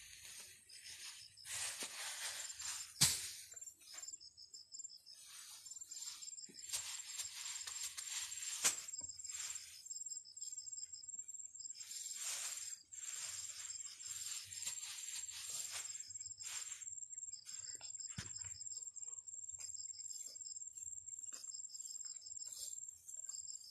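Rustling of rice seedling leaves and stems as bundles of uprooted seedlings are handled and laid down, in irregular bursts with two sharp clicks, one about three seconds in and one near nine seconds. Behind them insects trill steadily at a high pitch, with a second insect chirping in short pulsed runs.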